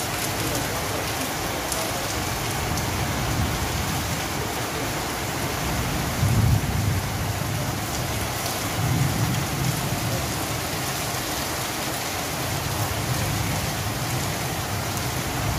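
Steady downpour of rain drumming on corrugated tin roofs and leaves, with a few low swells underneath, the strongest about six seconds in.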